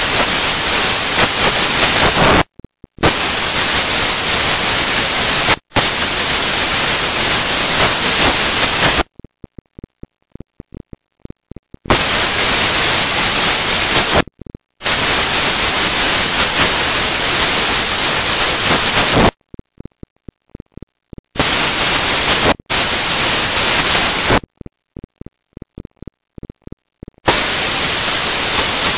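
Loud, even static hiss that cuts out abruptly and comes back several times, with faint rapid ticks during the longer gaps.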